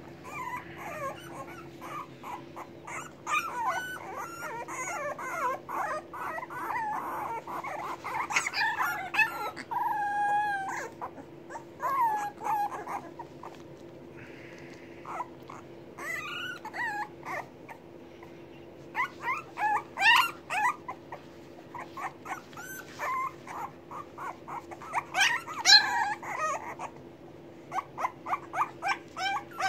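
English bulldog puppies whimpering and whining in short, high, wavering cries that come in bunches, with a lull of several seconds about halfway through. The puppies are hungry, waiting to be fed.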